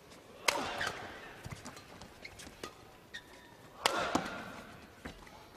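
Badminton rally: sharp racket strikes on the shuttlecock. Two loud hits come about three seconds apart, each ringing on briefly in the hall, with lighter shots in between.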